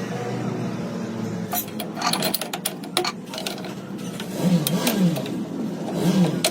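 A steady machine hum in a metalworking shop, with a quick run of sharp metallic clicks and clinks about one and a half to three seconds in.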